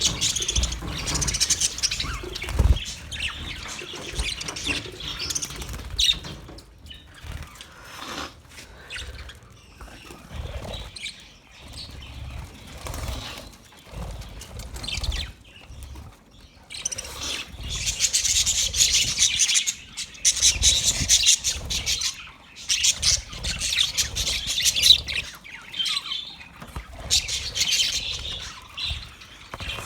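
Budgerigars chattering and warbling in rapid high-pitched twitters, busiest at the start and through the second half. Scattered low thumps run underneath.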